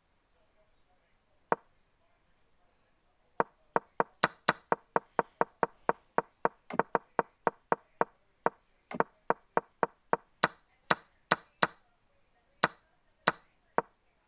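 Online chess game's move sounds: sharp wooden clicks of pieces being set down. There is a single click, then a fast run of about four a second, then slower, more spaced clicks.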